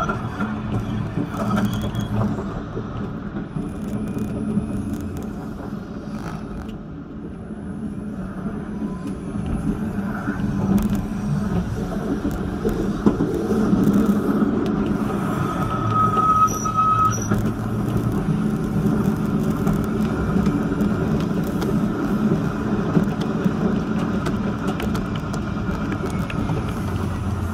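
Vityaz-M (71-931M) low-floor tram running along its track: a steady rumble of wheels on rails and running gear. About sixteen seconds in there is a brief higher steady tone.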